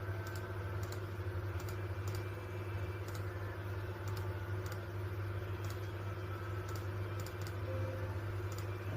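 Computer keyboard being typed on in scattered, irregular key clicks, over a steady low hum.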